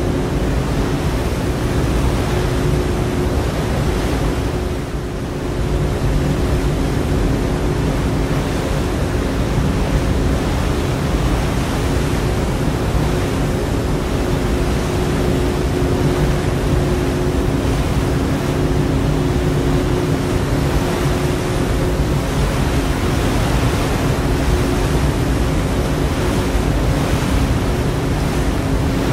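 Ferry under way: a steady rush of water and wind with a constant low engine hum beneath it, dipping briefly about five seconds in.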